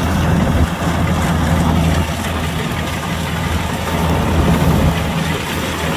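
Kubota combine harvester's diesel engine running steadily, a low even hum.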